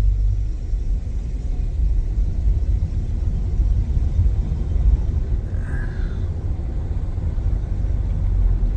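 Steady low rumble of a vehicle driving along, heard from inside the cab.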